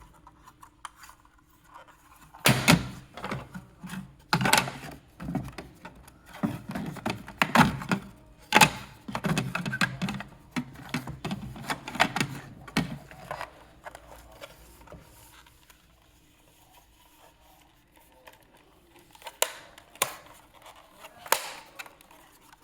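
Irregular handling noises: a run of clicks and knocks with rustling, densest over the first half, then a few sharp clicks near the end.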